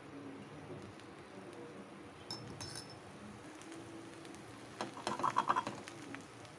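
Adai frying on a hot tawa with a faint steady hiss. About five seconds in comes a short flurry of light clinks from a utensil against a dish or vessel.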